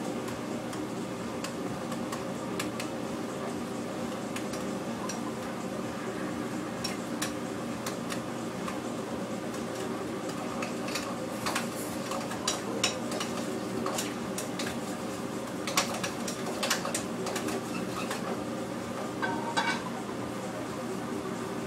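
Commercial kitchen background: a steady hum of running equipment, with scattered clinks and clatter of dishes and utensils that grow busier in the second half.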